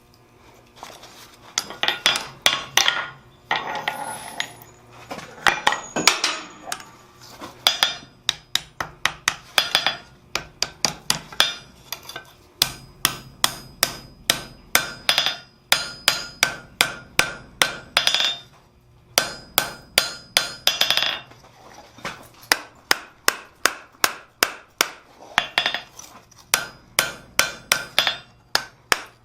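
Hammer blows on hot steel at an anvil while forging blacksmith tongs: a steady run of sharp metallic strikes, about two or three a second, with a few short pauses.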